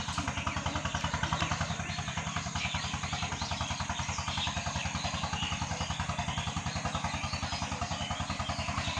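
A small engine idling steadily with an even, fast pulse.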